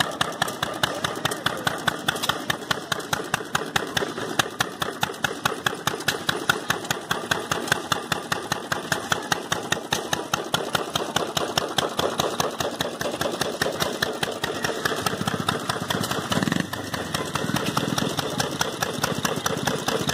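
Small antique single-cylinder stationary gas engine with twin flywheels running steadily, its firing heard as a rapid, even beat with no gaps.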